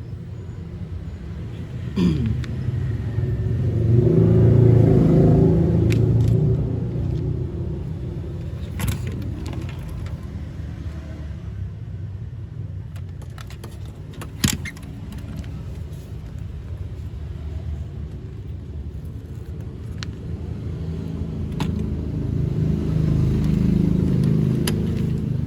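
A steady low rumble that swells twice, once early and once near the end, with a few sharp clicks and taps scattered through it.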